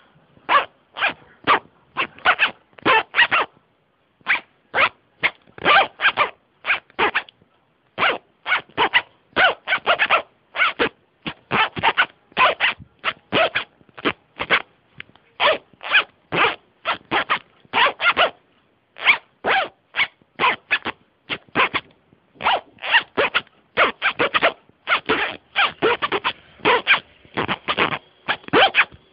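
Jacket zipper zipped back and forth in many quick strokes, played as a rhythmic tune in short phrases with brief pauses between them.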